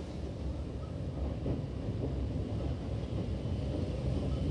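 Red Rhaetian Railway electric train running along street-running track toward the listener: a steady low rumble that grows slightly louder.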